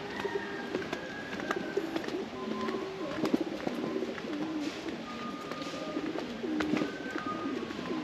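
Domestic pigeons cooing over and over, low stepped calls, with a few higher thin single-note calls of other birds.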